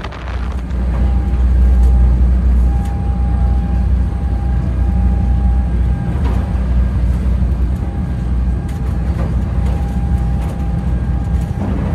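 A ferry's engines running with a loud, steady low drone heard from inside the cabin, with a faint high whine that comes and goes over it.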